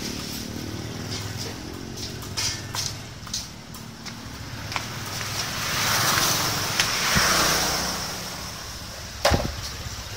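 A low, even engine hum, then a vehicle passing by, swelling and fading away. Near the end an empty metal can knocks down onto the concrete floor.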